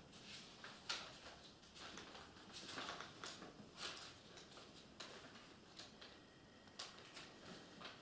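Pages of a Bible being leafed through by hand: a run of soft paper rustles and flicks, uneven and a second or so apart, the sharpest about a second in.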